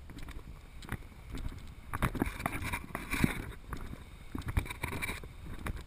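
Wind rumbling on a body-worn action camera's microphone, with irregular dull thumps and rustles from the wearer walking on sand.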